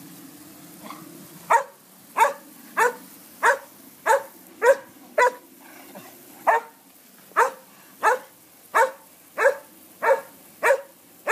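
A dog barking at the spray of a pop-up lawn sprinkler. It starts about a second and a half in with a steady string of short barks, about three every two seconds, and pauses briefly around the middle.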